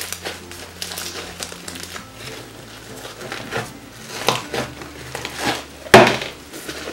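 Blue textured slime squishing and crackling as gloved hands knead, fold and stretch it in a plastic tub, in irregular wet crackles with a loud sharp pop about six seconds in. Soft background music plays under it.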